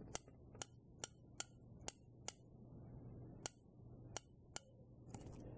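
Ruger New Model Blackhawk revolver's cylinder turned by hand with the loading gate open, clicking faintly chamber by chamber: about ten sharp clicks, roughly two a second at first, then a pause and a few more.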